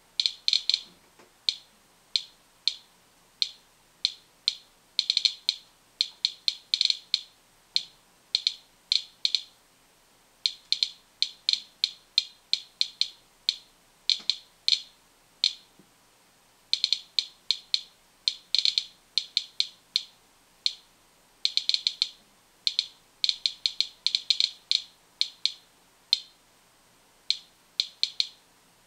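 Medcom Inspector Geiger counter clicking once for each detected count: short, high-pitched clicks at irregular intervals, now single, now in quick runs of several, the random spacing of radioactive decay. The count rate reflects a reading of about 0.6 to 0.7 microsieverts per hour from a packet of dried kelp, higher than the background.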